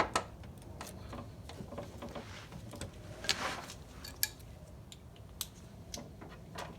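Scattered light clicks and knocks of small metal parts or hand tools being handled, with a brief scraping rustle about three seconds in.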